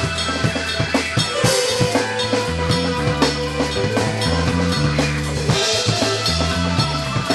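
Rock band music: a drum kit keeping a steady beat with bass drum and snare hits over a bass line of held low notes.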